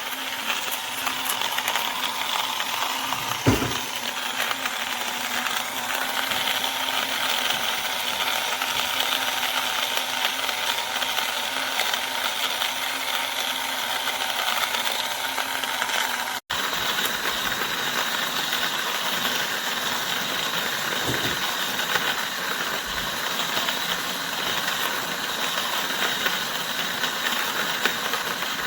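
Portable burr coffee grinder running and grinding coffee beans: a steady whirr with the rattle of beans in the burrs. There is a single knock about 3.5 s in and a brief break about 16 s in, after which the grinding carries on.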